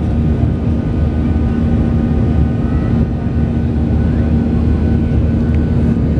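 Boeing 737 jet engines running at climb power, heard inside the passenger cabin as a steady, loud rumble of engine and airflow noise with a constant low hum under it.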